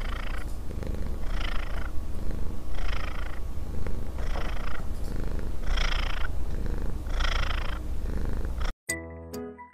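Domestic cat purring steadily, a low continuous rumble with a brighter pulse about every second and a half as it breathes. It cuts off near the end, giving way to music.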